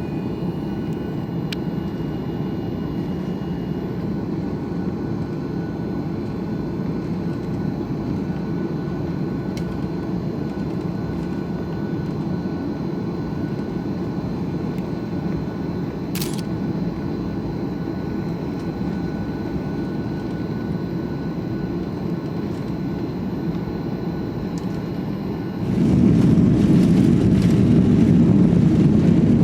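Boeing 737-800 airliner cabin noise: a steady low rumble of engines and airflow. About 26 seconds in, it suddenly becomes louder and harsher.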